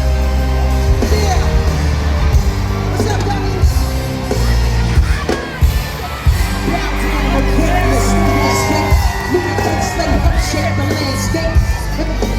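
Loud live hip-hop music over a concert sound system, with a heavy held bass line, a melodic backing and vocals over it.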